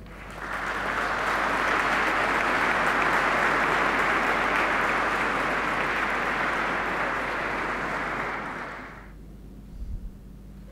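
Audience applauding, building up within the first second and dying away after about nine seconds.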